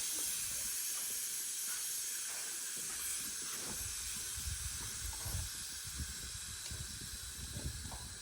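Air hissing steadily out of a square baler tire, the hiss slowly weakening as the tire deflates.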